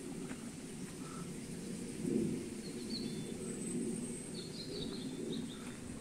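Low rumbling noise on the microphone of a handheld camera carried along a forest path, with a few faint, high bird chirps near the middle.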